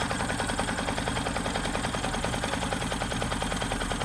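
Yamaha FZ-S V4's single-cylinder engine idling with a rapid, even tak-tak-tak knocking. The engine was recently rebuilt, and the mechanic suspects the crank balancer gear timing is out by a tooth, or a loose bolt on the starter one-way clutch.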